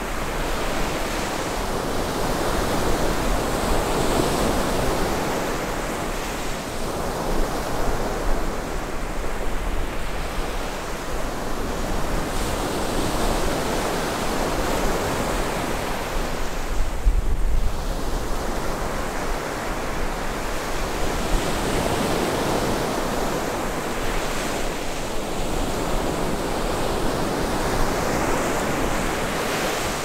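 Rough surf breaking and washing up a sandy beach, a continuous roar of water that swells and eases wave by wave. Strong wind blows across the windscreened microphone, adding a low rumble that is heaviest about midway through.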